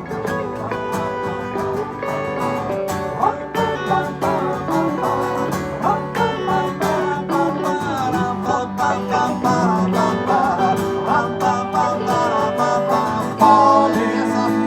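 Instrumental break of a folk-rock trio: strummed acoustic guitar and percussion under an electric slide-guitar lead with gliding, bending notes. The band gets louder near the end.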